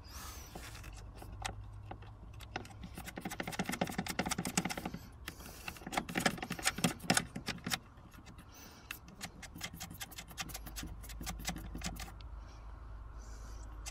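Ratchet wrench clicking in quick runs while a nut is worked at the top of the strut, the densest runs from about two and a half to nearly eight seconds in, then shorter, sparser bursts.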